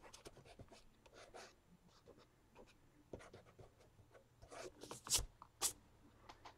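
Block eraser scrubbing back and forth on sketchbook paper, rubbing out pencil lines in a series of soft, short strokes. Two sharper taps about five seconds in.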